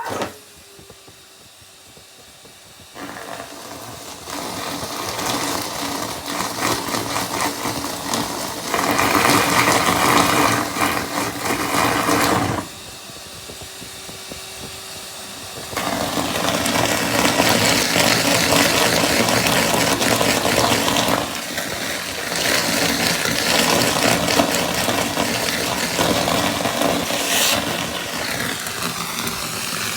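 Numatic Henry vacuum cleaner running loud while it sucks up pieces of rubber gloves. Its noise surges and drops as the pieces are drawn in: quieter for the first few seconds, loud after that, with a brief drop around the middle.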